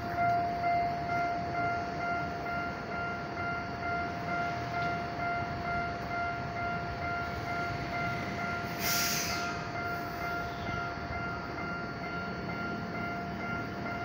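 Level-crossing alarm ringing in a steady, evenly repeating tone while a Tokyo Metro Ginza Line 1000-series subway car creeps out of the tunnel toward the crossing with a low rumble. A short hiss of air about nine seconds in.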